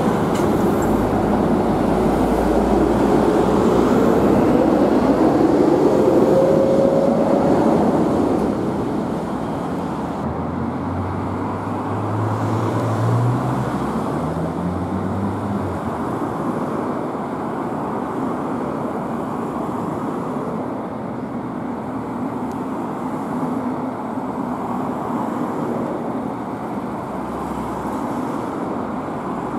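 Steady traffic noise from vehicles passing on a multi-lane city road, loudest in the first several seconds while a passing vehicle's tone slowly rises. From about eleven seconds in, an engine climbs in pitch in steps for several seconds as a vehicle accelerates through its gears.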